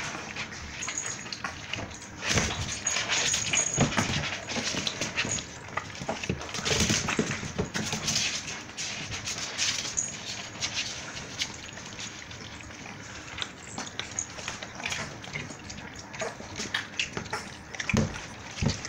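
Four-week-old pit bull puppies whimpering and scrabbling about in a plastic tub, with irregular clicks, scratches and chewing as they eat raw chicken gizzards.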